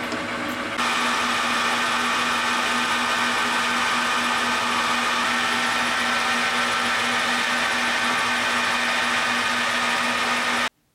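Metal lathe running steadily with a constant gear whine while cutting the bore of an aluminium pulley, first with a drill bit and then with the tool on the cross slide. The sound changes about a second in and cuts off suddenly near the end.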